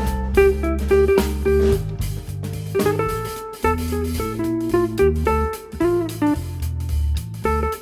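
Background music: a plucked guitar melody over a bass line.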